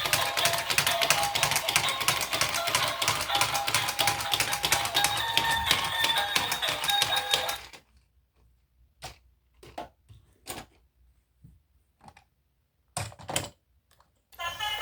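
Rapid, dense clicking with a thin tune behind it, which stops suddenly about eight seconds in; a handful of separate clicks follow, two close together about thirteen seconds in.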